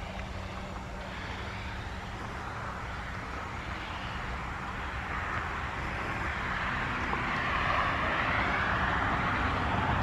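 Federal Signal 2001-SRN rotating electromechanical outdoor warning siren sounding a steady alert tone. It grows louder over the second half as the rotating horn turns toward the listener.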